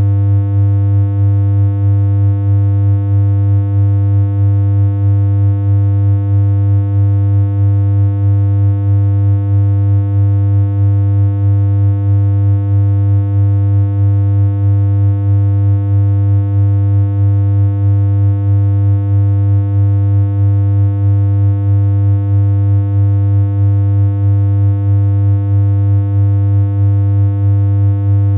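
A steady synthesized electronic hum: one unchanging low tone with a long row of buzzy overtones above it and a slight, even wobble in loudness.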